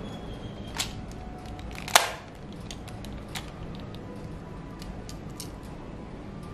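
Plastic clicks and snaps of DX Daivoyager toy parts being unlocked and pulled apart by hand. One sharp snap comes about two seconds in, with a few lighter ticks around it.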